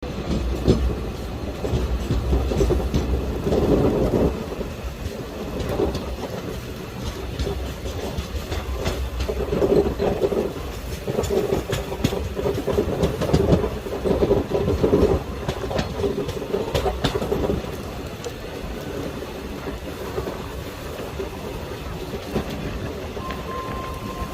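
Train passing at speed, its wheels clattering over the rail joints with a rapid clickety-clack. The loudness surges through the first two-thirds, then settles to a steadier rumble.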